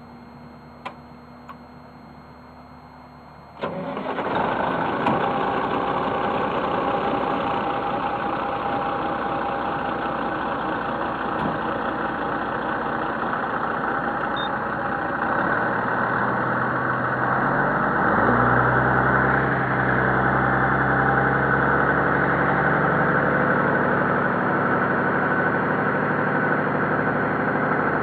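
A vehicle engine starts up close by about four seconds in and keeps running steadily, its pitch rising briefly and settling into a lower steady run a little past the middle.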